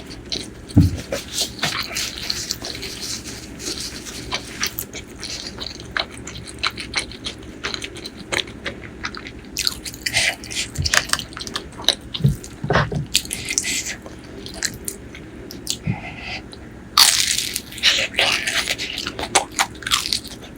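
Close-miked eating: crisp bites and crunchy chewing of food, a string of sharp crackles, with a louder burst of crunching near the end.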